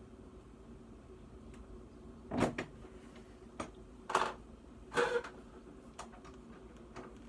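Hand ratchet with a 3/8 inch socket loosening a refrigerator door hinge bolt: three short bursts of ratcheting, a little over two seconds in, about four seconds in and about five seconds in, with faint single clicks between.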